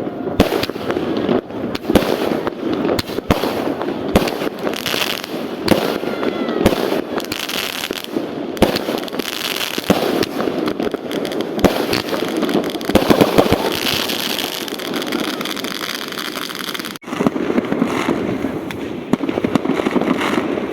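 Fireworks going off densely and continuously: many overlapping bangs from aerial shells bursting, with crackling and a few whistling streaks.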